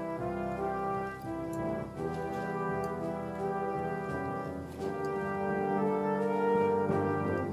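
Orchestral background music led by brass, in long held notes, growing somewhat louder in the second half.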